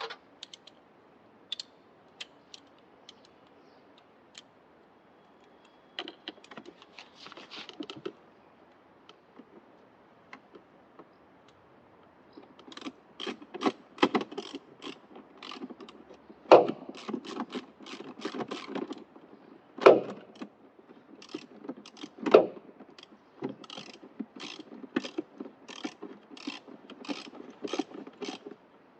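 Hand tools and metal parts being worked on the car: sparse clicks at first, then quick irregular ratchet-like clicking and knocking from about twelve seconds in, with three louder knocks.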